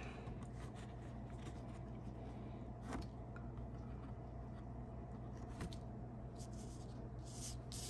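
Quiet room tone with a steady low hum, and a couple of faint ticks about three seconds in and again near six.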